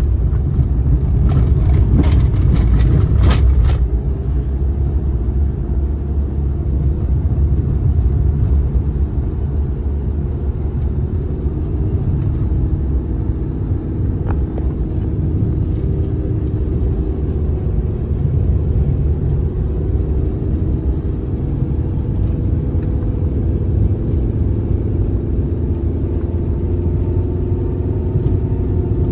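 Car engine and tyre rumble heard from inside the cabin, a steady low drone with a faint engine hum while driving slowly on a rough road. A run of sharp clicks and rattles comes in the first few seconds.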